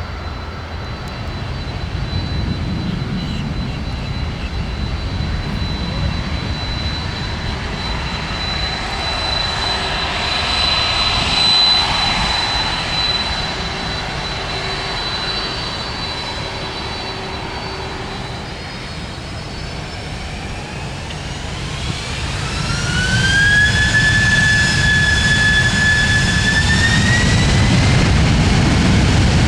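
Jet airliner engines: a steady high whine over a low rumble, loudest about eleven seconds in. About twenty seconds in, an engine spools up with a whine that climbs in pitch, holds, then climbs again, and the rumble grows louder.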